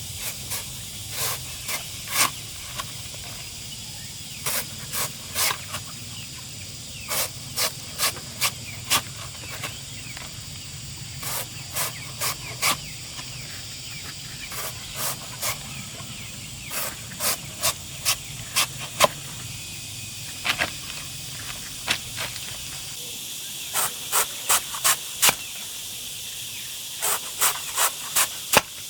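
Sharp chopping strikes in short runs of two to five, roughly two a second, over a steady high hiss. They fit a blade chopping up banana plant stems for feed.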